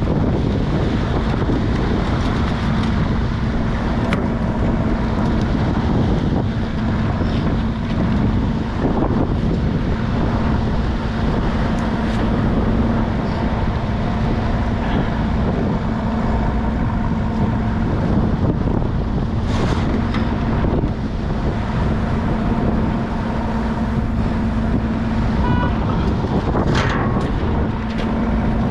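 Crab boat's engine running steadily with a constant low hum, wind buffeting the microphone. A few short knocks sound near the end.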